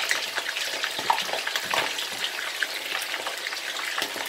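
Raw chicken pieces sizzling in hot oil in a karahi as more pieces are dropped in, a steady sizzle full of quick crackling pops.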